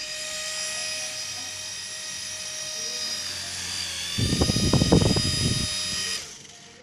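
Small electric motor and rotor of a toy sensor ball helicopter spinning with a steady high whine, dipping slightly in pitch partway through. A loud stretch of low rumbling and knocking from handling the ball comes over it just after the middle, and the motor stops suddenly about six seconds in.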